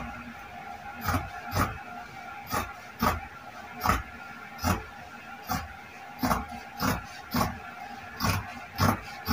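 Tailor's shears cutting through denim, one snip about every half second in an uneven rhythm.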